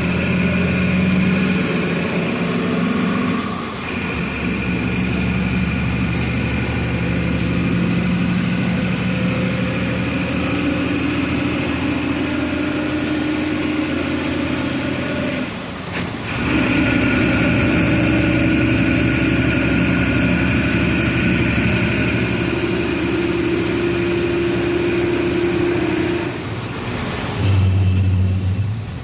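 Volksbus 17-230 EOD bus engine running while the bus is driven, with a steady high whine over it. The engine note dips briefly and changes pitch about 4 seconds and 16 seconds in, and drops away near the end.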